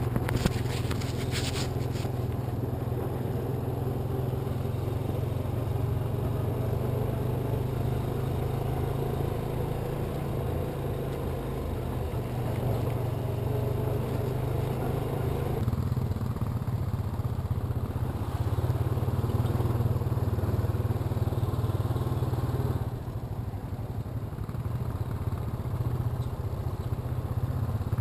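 Honda ATV engine running steadily while riding along a dirt logging road, with a few clattering knocks in the first two seconds. The loudness dips briefly about 23 seconds in.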